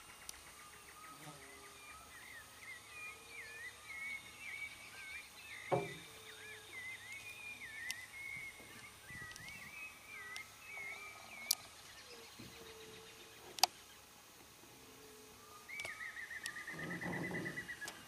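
Wild birds singing over open water: a run of short warbling, whistled phrases, with a steady high insect drone behind them. Three sharp clicks stand out, and near the end a louder rapid trill.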